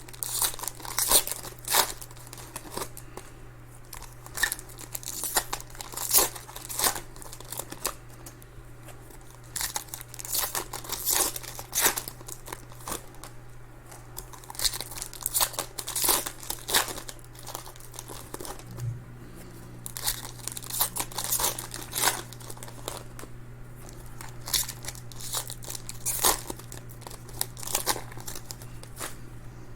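Trading-card pack wrappers being torn open and crinkled, with cards handled, making irregular crackles and rips over a steady low hum.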